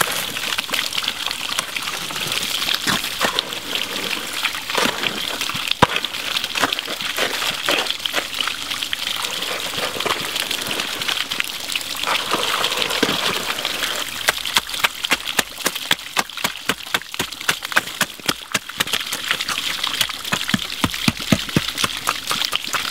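Creek water running steadily, overlaid by a hoe scraping and patting wet concrete, the taps coming quick and close together in the second half.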